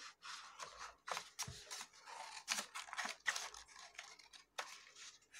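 Scissors snipping through paper in short, irregular cuts, with the sheet rustling as it is handled.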